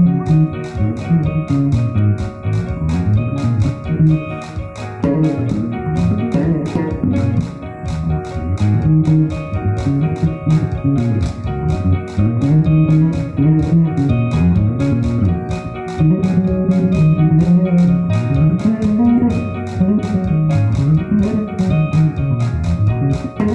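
Electric bass guitar played through an amplifier, an improvised run of moving melodic bass lines. Behind it runs backing music with a steady ticking beat, about two ticks a second.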